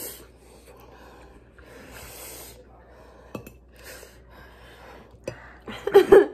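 A person slurping noodles and taking sharp, hissing breaths through the mouth against the burn of extra-spicy noodles. It ends with a short, loud, wordless vocal cry near the end.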